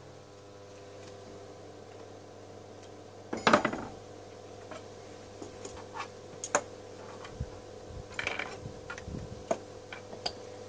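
Metal parts clinking and clattering as they are handled, loudest about a third of the way in and again near the end, over a steady low hum.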